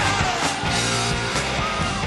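Rock music playing.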